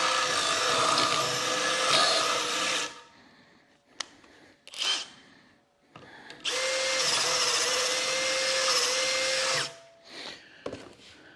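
Electric drill boring out a mounting hole to 10 mm in two runs of about three seconds each, running at a steady pitch, with a short pause between them.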